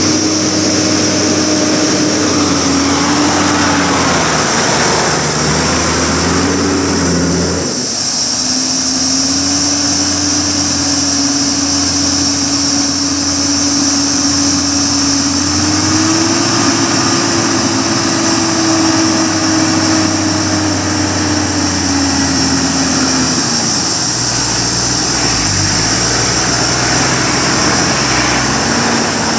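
Toyota LandCruiser 80 Series 4.2-litre six-cylinder turbo diesel running under load as it crawls up a rutted dirt track. Its note rises and falls with the throttle, stepping up a little past halfway and easing back later.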